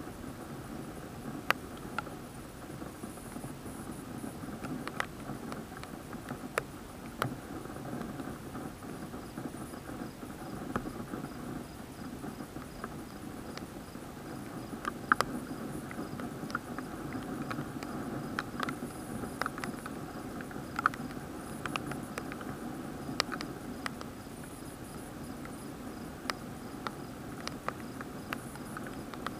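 Raindrops striking the plastic waterproof housing of an action camera: irregular sharp ticks over a steady low rush, the ticks coming more often from about halfway through.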